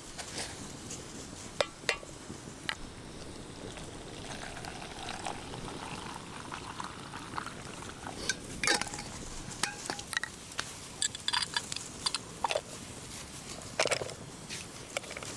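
Cooking utensils and cookware knocking and clinking in scattered sharp clicks, busier in the second half.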